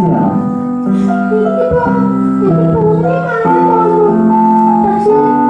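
Keyboard music: held chords and a melody moving from note to note in steps.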